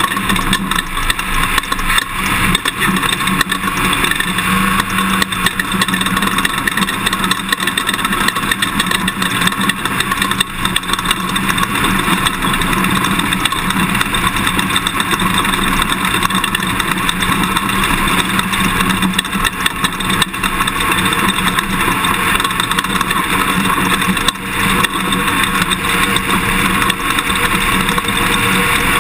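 Toyota Tundra pickup driving an off-road race course: engine running under steady road and tyre noise, with frequent small jolts from the rough ground.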